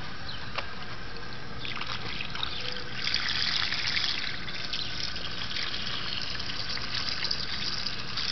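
Water running from the end of a garden hose and splashing onto gravel, a steady trickle that swells louder about two seconds in, with a dog lapping at the stream.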